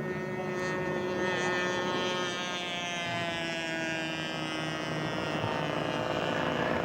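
Radio-controlled scale model airplane's engine running on its landing approach, a steady drone whose pitch slowly drops.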